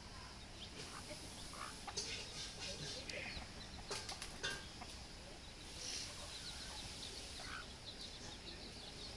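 Baby chicks peeping: many short, high-pitched cheeps overlapping one another, with a few soft knocks in between.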